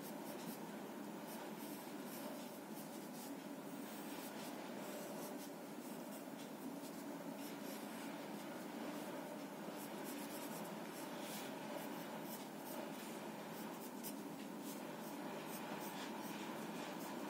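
A soft 10B graphite sketch pencil scratching across drawing paper in many short, quick shading and outlining strokes, over a steady background hiss.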